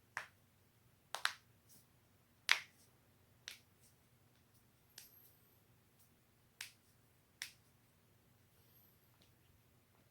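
A person's joints cracking: a run of about eight sharp pops at uneven intervals, including a quick double crack about a second in and the loudest pop about two and a half seconds in. The cracks stop after about seven and a half seconds.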